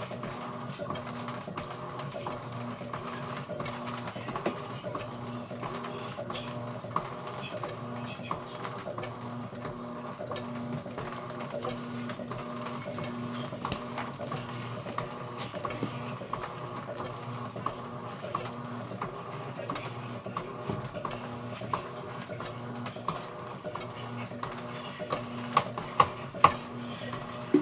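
Electrolux Essential Care 11 kg washing machine running a wash cycle on a load of curtains: a steady motor hum with a low tone that comes and goes every few seconds and light ticking, then a few sharp clicks near the end.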